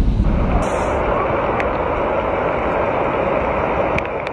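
Floodwater and heavy rain making a steady rushing noise, after a brief low rumble at the very start.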